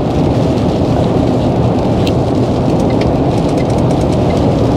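Steady rumble and hiss inside the cab of an Iveco lorry driving on a wet road, from engine and tyre noise on wet tarmac.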